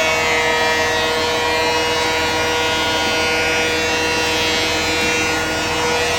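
Wood planer and its chip-collection blower running steadily, a constant motor whine with several steady pitched tones over a noisy rush.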